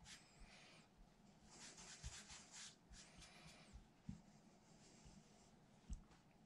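Faint rubbing and brushing of hands rolling a floured sheet of fresh pasta dough over on itself on a countertop, in several short strokes, with a few soft bumps.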